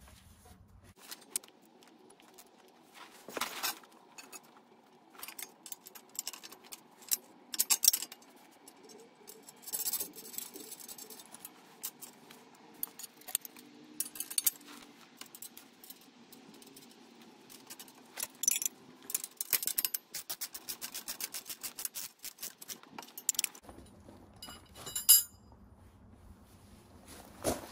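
Loose steel bolts, washers, nuts and spacers clinking and scraping against each other and the steel cultivator frame as a spring shank is bolted on. About two-thirds of the way through there is a quick run of even clicks from a ratchet wrench tightening a nut, and near the end there is one sharp metal clack.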